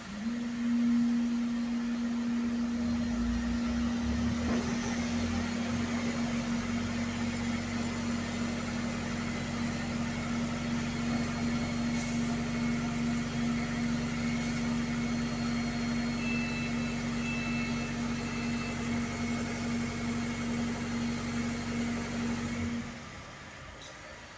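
Double-decker bus running in the garage: a steady droning tone over a low rumble, which cuts off suddenly near the end.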